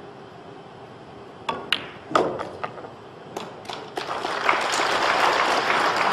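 A cue tip strikes the cue ball about a second and a half in, followed by sharp clicks and knocks of pool balls as the 7 ball is potted. From about four seconds in, the audience applauds steadily.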